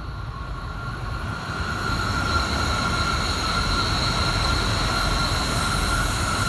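An E6-series Shinkansen coupled to an E5-series set passing at speed. The rumble of the train builds over the first two seconds, then holds steady, with a high-pitched whine running through it.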